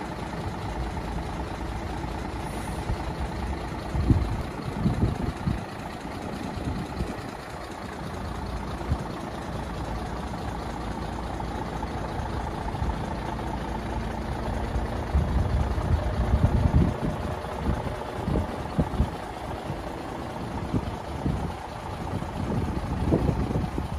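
Scania P94D 220 truck's 9-litre five-cylinder diesel idling steadily. Irregular low buffeting on the microphone comes about four seconds in, again from about fifteen seconds, and near the end.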